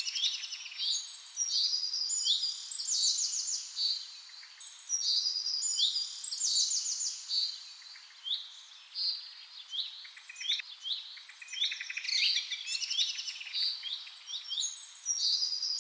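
Songbirds singing continuously: a steady stream of short, high chirps and quick rattling trills, several phrases overlapping with barely a pause.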